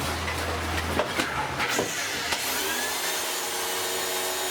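A battered vacuum cleaner's electric motor, switched back on, spins up about two seconds in after a few knocks, then runs with a steady whine.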